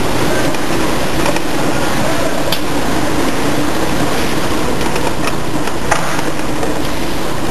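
A monoblock lubricant-bottle filling line and its conveyor running, giving a loud, steady mechanical noise, with a few sharp clicks.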